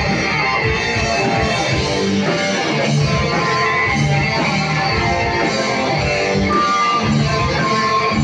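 A metal band playing live: electric guitars, bass and drums, with a flute melody over them.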